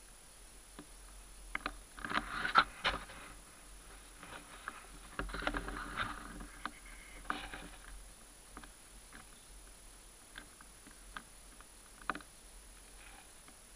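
Dry leaves and twigs rustling and crackling close by, in two bursts of sharp crackles with a few scattered single clicks afterwards.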